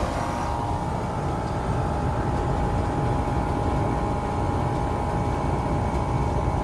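2006 Rheem Classic 3-ton air-conditioner condensing unit running steadily, its outdoor fan blowing air over a low rumble, with a steady mid-pitched hum that weakens about half a second in and comes back near the end.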